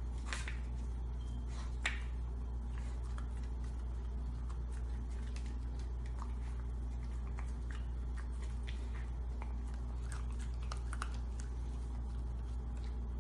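Light, irregular clicks and taps of a wooden treat-puzzle toy's pieces as a corgi puppy noses and licks at it, over a steady low hum.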